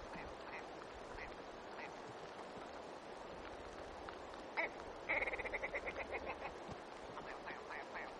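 Red grouse calling: scattered single call notes, then about five seconds in a rapid cackling run of notes that fades away over a second or so.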